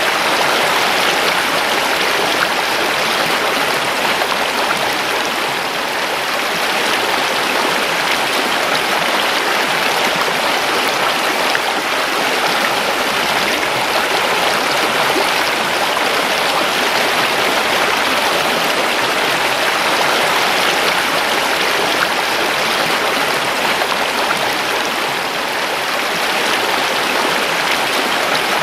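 River water rushing steadily over rocks, a continuous even flow.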